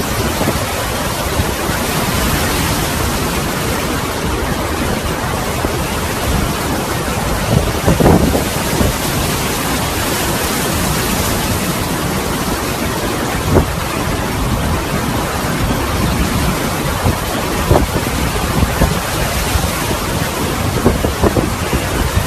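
Hurricane wind and driving rain: a loud, steady rush of noise with wind buffeting the microphone and a few sharper gusts standing out.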